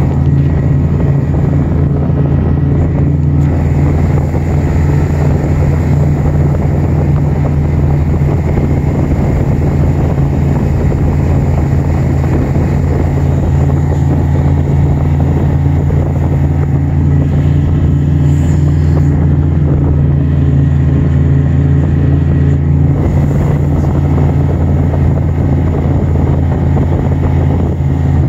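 Snowmobile engine running at a steady speed while under way across snow: a constant low hum with no revving.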